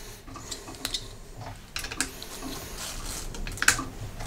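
Crocodile clips of a battery charge checker being clipped onto the terminals of a motorcycle battery: a scatter of light clicks and knocks as the clips and their leads are handled.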